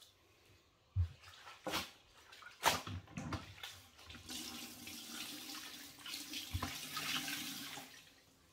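A few knocks from handling a plastic mop bucket and its wringer, then about four seconds of water streaming and splashing into the bucket as a soaked cloth is wrung out over it, mopping up floodwater.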